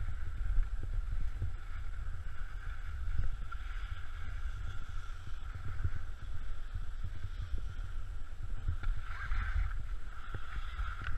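Wind buffeting the microphone of a camera carried by a skier on a downhill run, with the skis scraping over groomed snow; the scraping grows louder about nine seconds in and again near the end.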